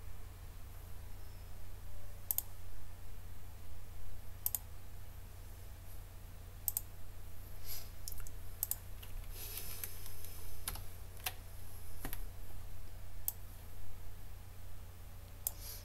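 A dozen or so sharp computer mouse clicks at irregular intervals, a few close together around the middle, over a steady low hum.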